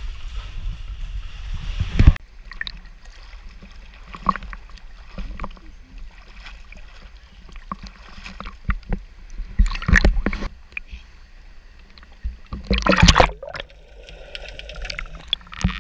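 Sea water sloshing and splashing around a GoPro held at the surface and dipped underwater, with scattered knocks against the housing and two louder splashes, one about ten seconds in and one near the end. A sharp knock about two seconds in cuts off a steadier rushing noise.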